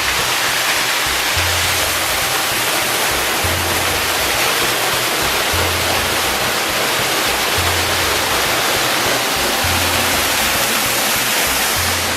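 Background music with a low bass note repeating about every two seconds, over a loud steady rushing hiss.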